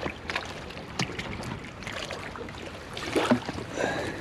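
Wet squelching and sloshing of tidal mud and shallow water as gloved hands take hold of an oyster-encrusted rock, with several sharp clicks of shell.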